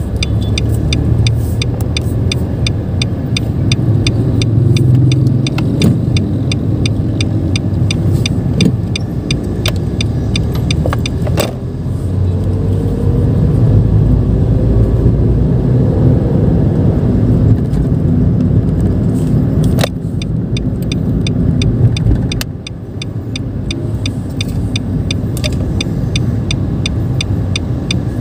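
Cabin sound of a Nissan March 1.2's three-cylinder engine and road noise in stop-and-go traffic, with a turn-signal relay ticking at an even rate. The ticking stops about eleven seconds in while the engine pitch rises as the car pulls away, then starts again about twenty seconds in.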